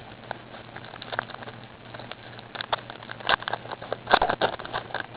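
Trading cards and a card-pack wrapper being handled: scattered crackles, rustles and light clicks, sparse at first and busier from about halfway through.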